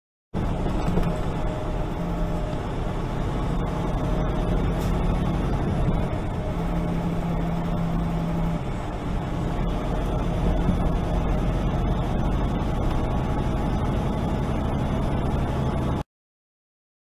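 Loaded semi truck cruising at highway speed: steady engine drone and road noise heard inside the cab. It starts abruptly just after the start and cuts off suddenly about a second before the end.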